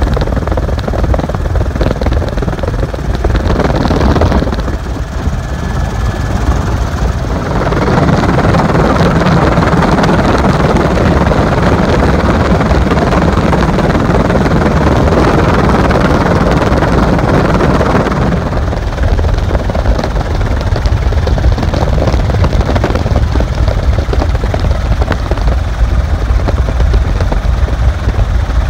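Helicopter in flight, its rotor and engine heard through an open door with heavy wind rush on the microphone. The rush swells about a quarter of the way in and eases again a little past the middle.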